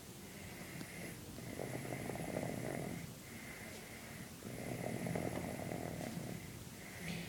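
A baby snoring in its sleep: two long, rough snores, one about a second in and another past four seconds, with quieter breathing between them.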